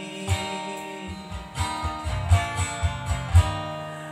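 Instrumental backing music of a slow pop ballad between sung lines: strummed acoustic guitar over a pulsing bass.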